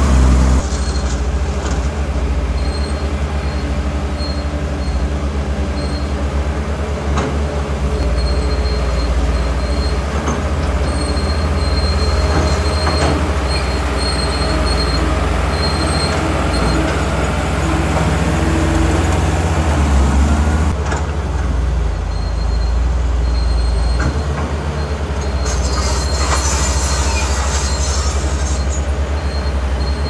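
Crawler bulldozer working, its diesel engine running steadily with a high squeal from its steel tracks that comes and goes, and a few clanks.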